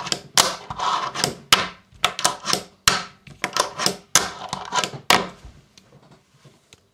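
Fingerboard with Brr trucks and g7.1 wheels being ridden on a tabletop: a quick run of sharp pops and clacks, with wheels rolling between them. The run thins out to a few faint knocks about five seconds in.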